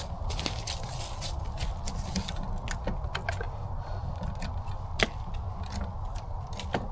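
Hand pruners snipping woody branches: scattered sharp clicks and snaps, the loudest about five seconds in, over a steady low hum.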